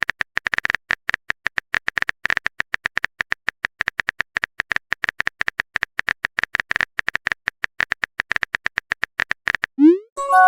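Rapid, uneven string of short, high-pitched electronic blips, a text-blip sound effect, stopping shortly before the end. A quick rising swoop and a short tone follow it.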